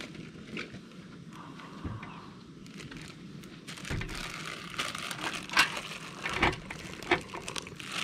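Crinkling and rustling with scattered sharp clicks and knocks, growing busier and louder from about halfway through, as of things being handled close by.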